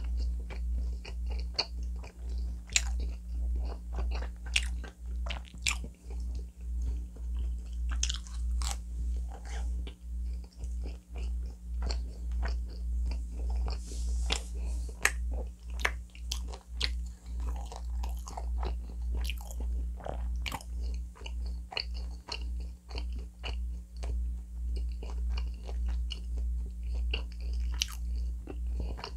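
Close-miked chewing of a mouthful of pizza with the mouth closed: a steady rhythm of chews with soft crunches of crust and wet mouth clicks.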